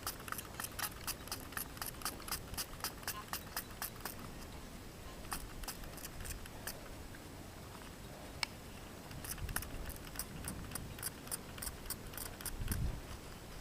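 Hand spray bottle pumped in quick runs of short spritzes, wetting a freshly dug metal relic to clean off the dirt, with a few soft handling thumps near the end.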